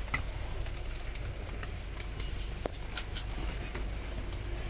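Steady low rumble inside a passenger van, with scattered light clicks and taps of handling close by.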